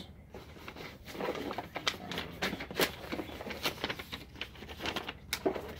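Plastic fishing-lure packages crinkling and clicking as they are handled and pulled out of a cardboard box, with irregular light taps throughout.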